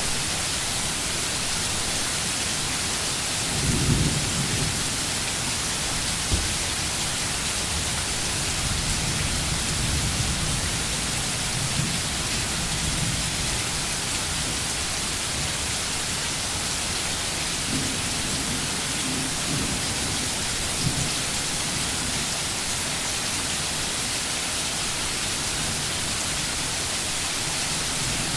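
Steady rain hissing, with low rumbles coming and going, the strongest about four seconds in.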